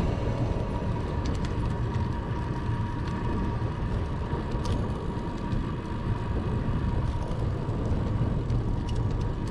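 Ride ambience from a bicycle-mounted camera: a steady low rumble of wind and road noise, with a faint steady high tone and a few light ticks.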